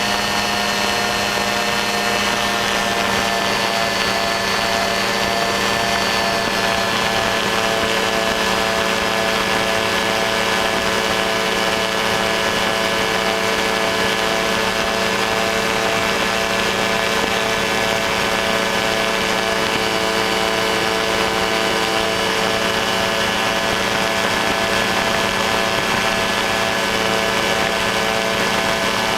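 Ultralight aircraft's engine and propeller running steadily in flight: a constant drone at an even pitch, over a steady rush of air.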